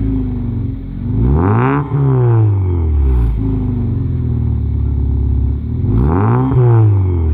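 Alfa Romeo 147 1.6 Twin Spark inline-four petrol engine free-revving while parked. It is blipped twice, about a second and a half in and again about six seconds in, each time rising sharply in pitch and then sinking back to idle.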